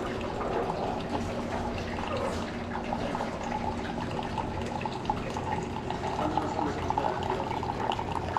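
Single-serve coffee maker brewing: a thin stream of coffee pouring and dribbling into a ceramic mug, over a steady low hum.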